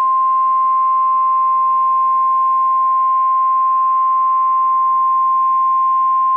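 NOAA Weather Radio 1050 Hz warning alarm tone: one steady, loud, high tone heard over the radio with faint hiss. It is the signal that a weather warning broadcast is about to follow.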